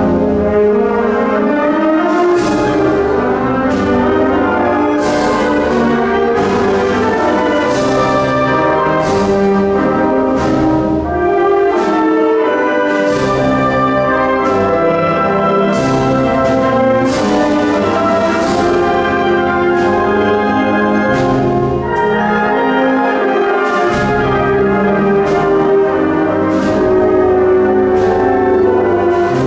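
Symphonic wind band playing a Spanish Holy Week processional march, the brass leading over sustained chords, with percussion strokes marking a slow, steady beat.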